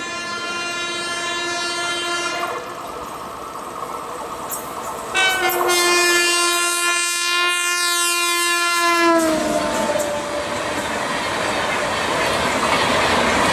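WAP-7 electric locomotive's horn sounding two long blasts as the Rajdhani Express approaches at speed; the first ends about two seconds in, and the second, louder one drops in pitch as the locomotive passes. Then the rush and wheel clatter of the LHB coaches going by at speed.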